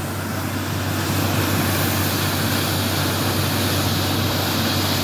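Borewell drilling rig's engine and air compressor running steadily while compressed air blasts water up out of the new borehole in a continuous spray: an even rushing hiss over a deep steady hum. It is the sign that the bore has struck water and is being air-lifted.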